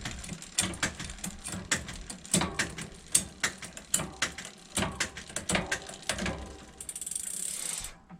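Bicycle rear hub and drivetrain clicking and ratcheting in irregular runs of sharp ticks. A steady hiss runs for about a second near the end.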